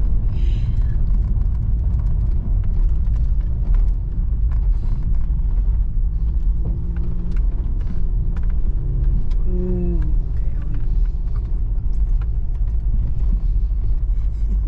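Car engine running under load with a steady low rumble as the car climbs a steep driveway, with a few small knocks and a brief wavering tone about ten seconds in.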